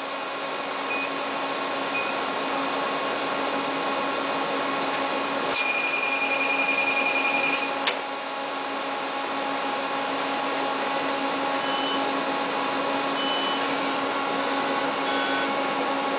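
CM85C-M chip mounter (SMT pick-and-place machine) running through its start-up self-check: a steady whir and hum of its motors and blowers. There are a few sharp clicks, and a rapid high-pitched pulsing tone lasts about two seconds starting about five and a half seconds in.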